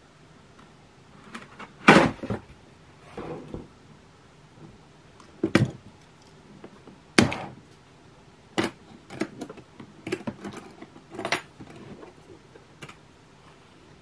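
Handling noise from a hard plastic tool case: a series of separate knocks and clicks as the case is handled and set down, then its two metal latches are clicked open and the lid lifted, in a quicker cluster of clicks over the last few seconds.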